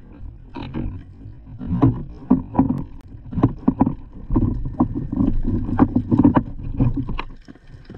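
Water splashing and sloshing, with irregular knocks and thuds at an uneven pace.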